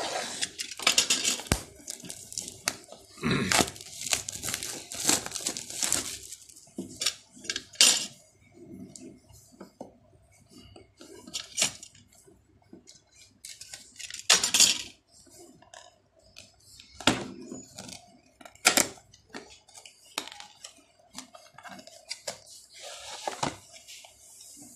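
Hands opening a cardboard action-camera box: irregular bursts of scraping, rustling and tearing at the packaging, with a few sharp knocks and clicks against the table.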